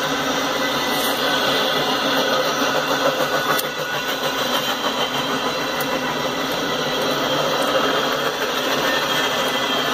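Double-stack intermodal train of container well cars rolling past: a steady, loud rumble of steel wheels on the rails.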